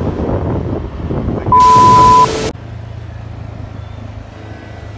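Rumbling wind and road noise from riding along a street, broken about one and a half seconds in by a very loud hiss with a steady high tone that lasts about a second and cuts off abruptly. After it comes a quieter steady low hum.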